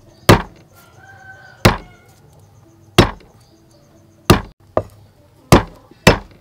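A cleaver striking down on garlic cloves on a thick wooden chopping block, crushing them: seven sharp knocks, about one a second, coming a little faster in the second half.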